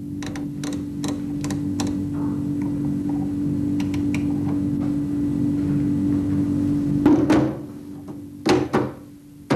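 A steady machine-like hum with scattered clicks, which stops with a louder bump about seven seconds in, followed by two knocks and another near the end.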